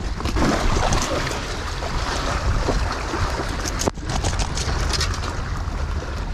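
Wind buffeting the microphone over the wash of waves against shoreline rocks, a steady rumbling noise with scattered light clicks.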